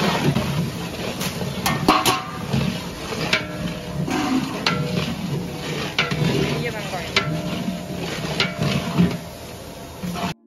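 A long metal ladle stirs chopped onions, green chillies and mint frying in oil in a large aluminium cooking pot, scraping and clinking against the metal again and again over a faint sizzle.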